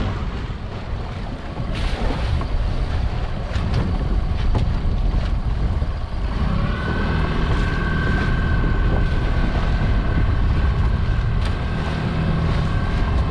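Wind buffeting the microphone, with a few knocks as a weed-covered crab pot is heaved over the side. About six seconds in, the boat's outboard motor is throttled up and then runs steadily as the boat gets under way.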